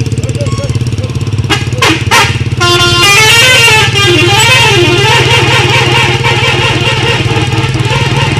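Telolet horn sounding over a steadily running engine: a couple of short blasts about a second and a half in, then a continuous melody of quickly stepping notes.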